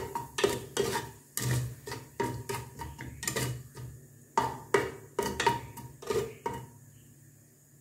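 A plastic spatula scraping and knocking against the aluminium pressure-cooker pot while stirring mustard seeds and spices tempering in oil. It is a quick, uneven run of strokes that stops shortly before the end.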